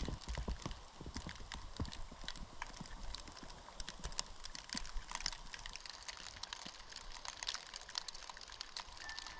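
Footsteps crunching in wet snow, with a dense crackle of small clicks throughout and heavier footfalls in the first couple of seconds.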